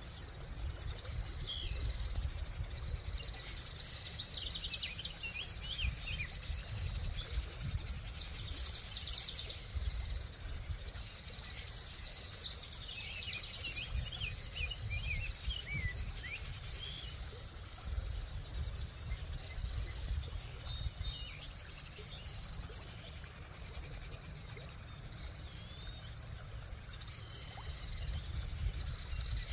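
Birds chirping, with several short rapid trills and a run of quick falling chirps, over a steady low rumble.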